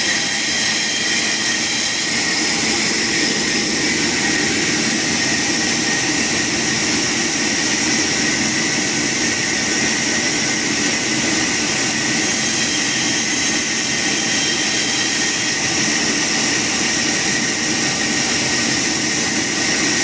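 Sawmill saw running steadily: a loud, even mechanical noise with a steady high whine.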